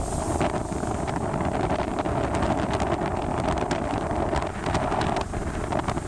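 Sea waves surging and breaking over rocks, churning and splashing, with strong wind buffeting the phone's microphone into a heavy rumble.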